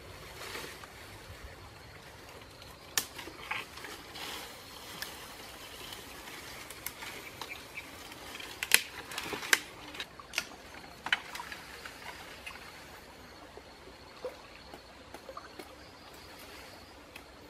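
Twigs and branches cracking and leaves rustling as a man climbs through a tree: scattered sharp snaps, the loudest two about halfway through.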